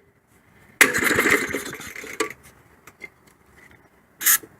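A 1965 3 HP Briggs & Stratton engine is released by its wind-up starter about a second in, spins and fires briefly for about a second and a half, then dies away; the owner suspects a clogged carburetor main jet. Two short sharp noises follow near the end.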